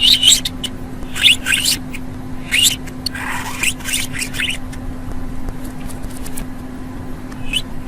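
Budgerigar chirping and chattering in short high notes, busy for the first four seconds or so, then only a few faint chirps. A steady low hum runs underneath.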